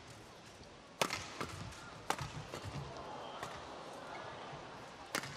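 Badminton rally: rackets striking the shuttlecock in sharp cracks about once a second, the loudest about a second in, two seconds in and near the end, with fainter hits between.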